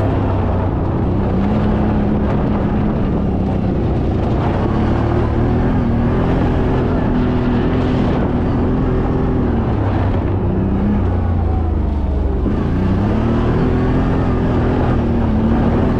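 CFMoto 1000 side-by-side's V-twin engine running under load, its pitch rising and falling with the throttle. About twelve seconds in the engine note drops briefly, then climbs again.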